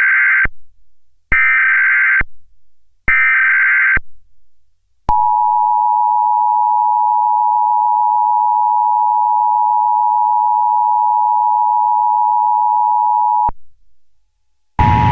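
Emergency Alert System SAME header: three short bursts of screeching digital data tones, each under a second. They are followed by the EAS two-tone attention signal (853 and 960 Hz), held steady for about eight seconds and cut off abruptly. A loud, harsh noise starts just at the end.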